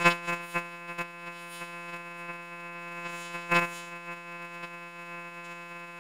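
A steady, buzzy synthesizer-like electronic tone held on one pitch, with a few clicks in the first second and another about three and a half seconds in.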